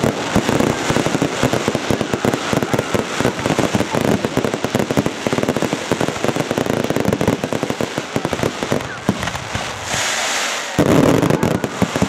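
Fireworks display at full barrage: a dense, continuous run of bangs and crackle from many shells bursting at once. About ten seconds in the bangs give way briefly to a hiss, then resume.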